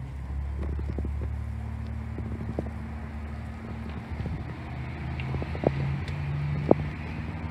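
An engine idling steadily, its low hum shifting a little about four seconds in, with a few short knocks on top.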